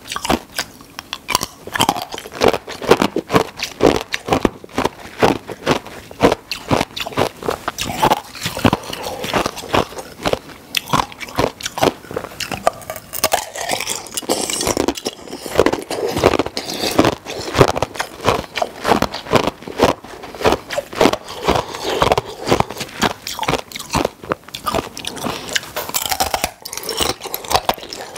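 Ice being bitten and chewed close to the microphone: a dense, irregular run of hard crunches, one after another.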